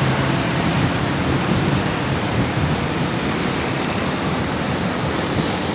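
Steady noise of road traffic on a busy city street, an even rush with a low engine hum underneath.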